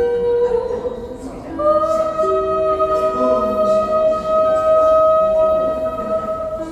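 Slow, gentle lyre music: long single notes left ringing, a new note coming in about one and a half seconds in and held for several seconds.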